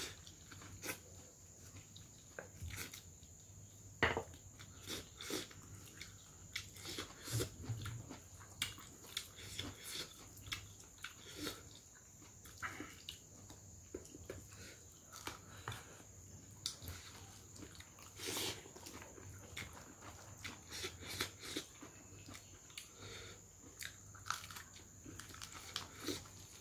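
Close-miked chewing and lip-smacking of a person eating rice and pork by hand: many short, irregular wet clicks and smacks.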